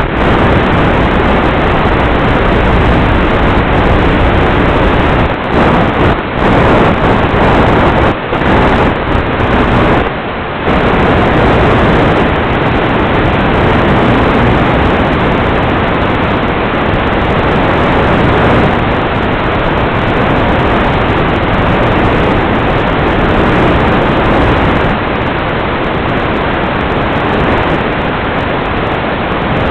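Loud steady hiss of static from an analog FPV video link's audio channel, with a few brief dropouts, the longest about ten seconds in.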